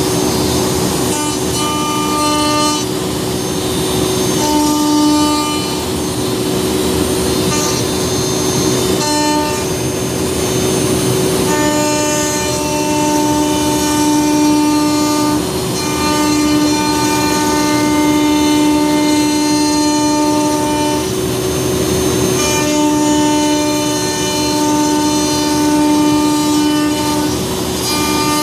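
CNC router milling a wooden block with an end mill: a steady cutting hiss under a whining tone that switches on and off every few seconds as the machine moves from one pass to the next.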